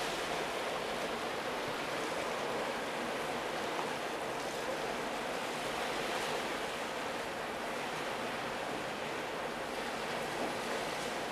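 Steady rushing noise of wind and waves on choppy open water.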